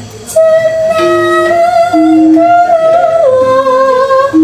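Javanese gamelan music: steady metallophone notes ringing one after another under a long, slightly wavering melody line held high above them, which steps down twice near the end.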